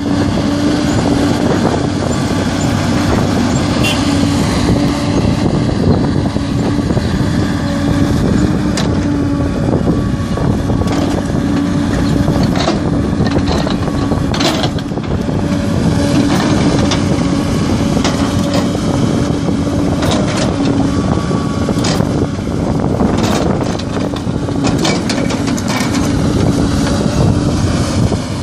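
Hidromek 220 LC crawler excavator's diesel engine running steadily under working load, with a steady drone. Short knocks and clatter of the bucket scraping and dropping rocky soil come now and then, most around the middle and again a little before the end.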